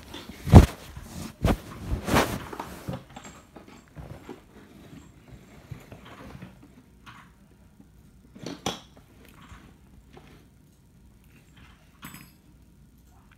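Handling noise of a phone: a few loud thumps and rubbing against fabric in the first three seconds, the loudest about half a second in, then scattered soft scuffs and knocks, with another thump about nine seconds in.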